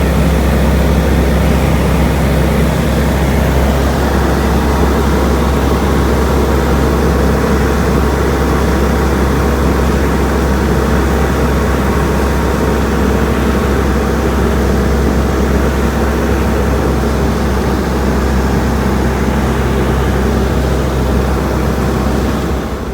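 A steady engine drone with a constant low hum under a wide rushing noise, unchanging throughout.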